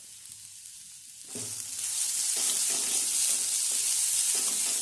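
Carrot and bean thoran sizzling in a hot pan, the sizzle growing much louder about a second in.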